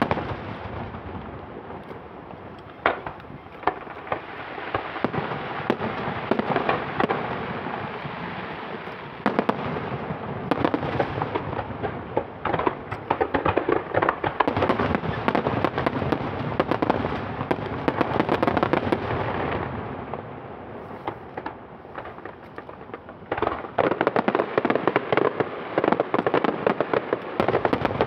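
Aerial fireworks display: shells bursting with sharp reports over a near-continuous dense crackle. The crackle eases off about two-thirds of the way through, then comes back thick for the last few seconds.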